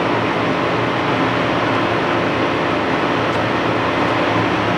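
Steady drone of running machinery: an even hum with a noisy wash over it that does not change.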